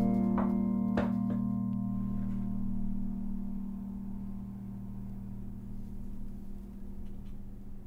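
Background music: a couple of plucked notes over a held low chord that slowly fades out.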